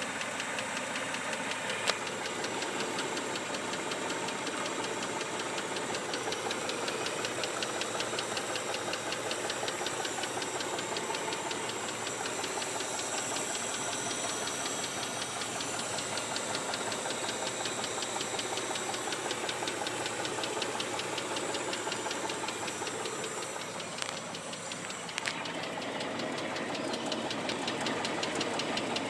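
Mitsubishi 3000GT's 3.0-litre V6 running steadily with a fast, even ticking knock, which the owner fears is rod knock and hopes is lifter tick. A single sharper click about two seconds in.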